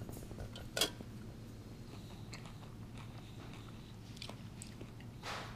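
A person eating waffles: faint chewing and biting sounds with scattered small ticks, a sharp click a little under a second in and a short rustling burst near the end, over a low steady hum.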